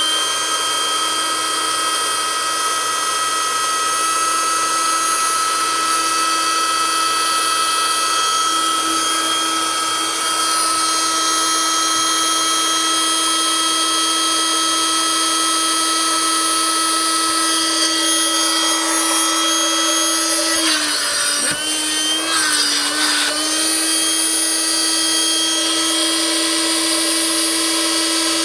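Electric 12-volt air pump inflating a car air mattress, its motor running at a steady high pitch. About twenty seconds in, the pitch dips and wavers for a few seconds, then steadies again.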